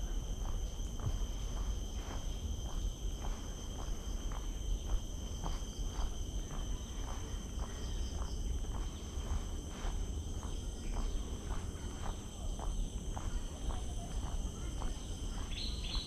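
Steady high-pitched drone of insects, with footsteps on a wooden boardwalk about twice a second over a low rumble on the microphone. Near the end a bird starts a quick run of repeated chirps.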